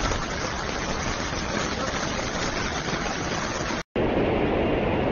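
Steady rushing noise of rain and pouring floodwater. After a brief break about four seconds in, a louder, deeper rush of muddy floodwater streaming along a subway platform.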